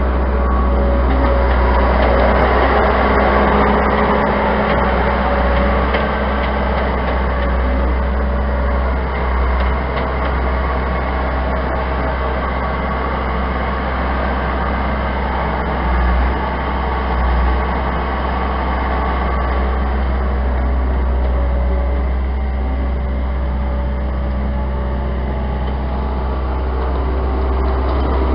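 Case 90XT skid steer loader's diesel engine running steadily under load while its arms raise a stack of hay bales, a constant low engine hum with little change in speed.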